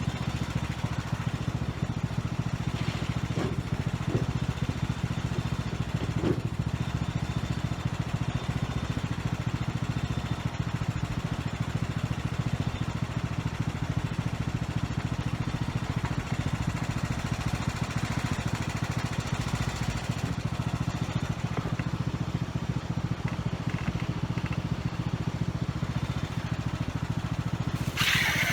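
Riding lawn mower engine idling steadily, left running to charge a weak battery, with a few faint clicks about four to six seconds in.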